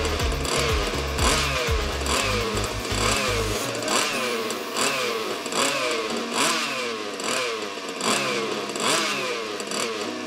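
Small two-stroke petrol engine of a 1/5-scale RC car, fitted with a tuned exhaust pipe, running on a test stand while it warms up (heat-soaks) from cold. Its pitch rises and falls back over and over, about twice a second.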